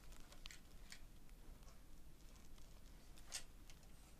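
Near silence with faint scattered clicks and light taps from hands handling and tilting a motherboard, the clearest about three seconds in.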